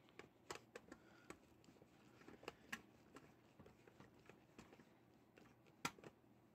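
Faint, irregular clicks and light taps, with one sharper click near the end.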